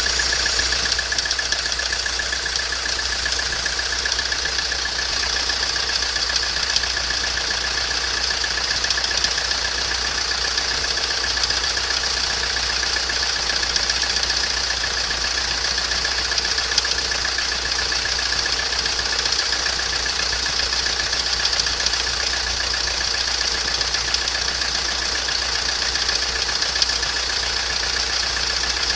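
Mitsubishi 4M41 3.2-litre diesel engine running steadily, with a rapid knocking from the air-conditioning belt tensioner pulley bearing, the sign of a bearing that starts to knock on a cold engine in damp weather.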